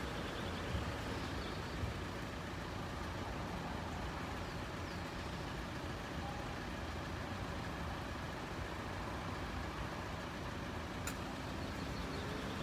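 Steady low rumble of road vehicles idling, with a single sharp click about eleven seconds in.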